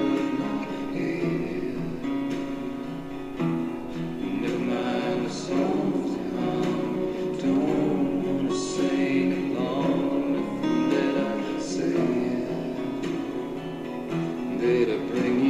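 Background music: a song with singing voices over instrumental accompaniment.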